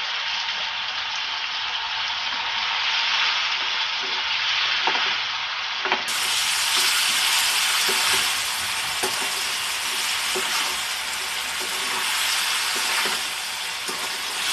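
Chopped onion and tomato frying in hot oil in a pan, a steady sizzle, while a spoon stirs, with occasional light taps of the spoon against the pan.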